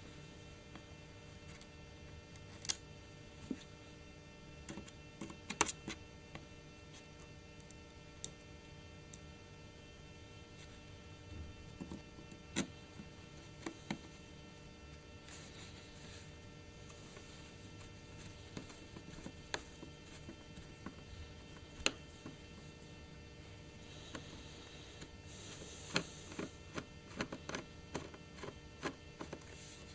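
Small screwdriver and fingers working the base-plate screws of a Titanium PowerBook's metal bottom case: scattered sharp clicks and taps, with a short scrape near the end, over a steady electrical hum.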